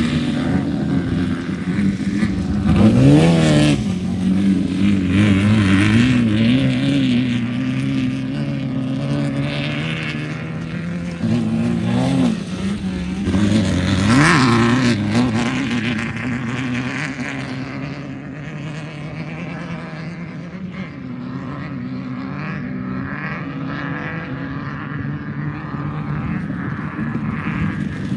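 Off-road race vehicle engine running under load, with quick revs rising and falling about three seconds in and again around fourteen seconds. In the second half the engine grows fainter and duller.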